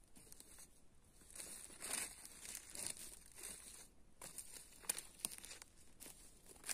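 Footsteps through dry leaf litter and grass: faint irregular rustling and crinkling with a few sharp crackles, as of dry leaves or twigs underfoot.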